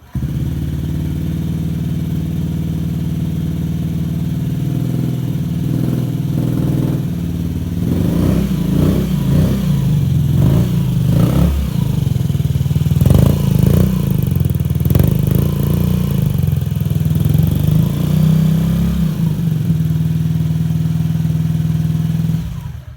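Honda Ruckus 50cc four-stroke scooter engine running through a Yoshimura aftermarket exhaust: it idles steadily, is revved in a series of quick throttle blips from about seven seconds in to about twenty, settles back to idle and stops near the end.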